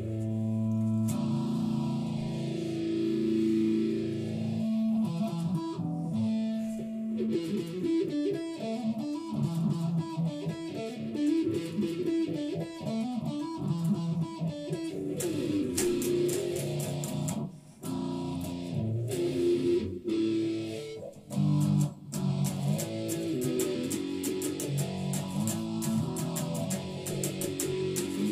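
Electric guitar played solo: a few held notes at first, then a run of fast picked notes, with a few brief stops about two-thirds of the way through.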